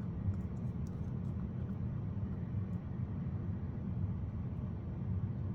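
A steady low rumble, with a few faint light clicks in the first second or so.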